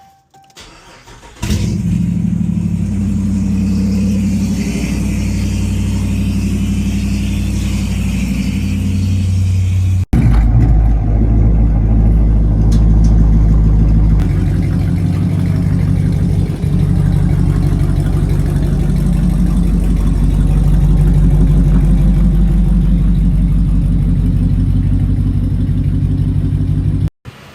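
2018 Dodge Charger's 5.7 L Hemi V8 running on catless midpipes, loud and steady. It cuts in sharply about a second and a half in and breaks off briefly twice. The owner fears a large exhaust leak because the midpipe adapters don't fit his modified exhaust.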